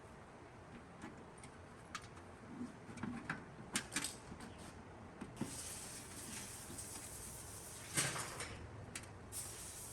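Scattered light clicks and knocks, as of hard objects being handled, with a louder knock about eight seconds in; a faint hiss comes in about halfway.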